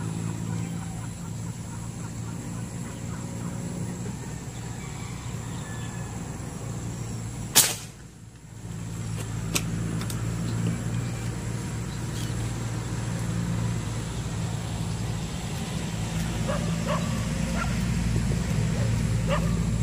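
A single sharp airgun shot about seven and a half seconds in, the loudest sound, over a steady low motor hum. A few fainter clicks follow later.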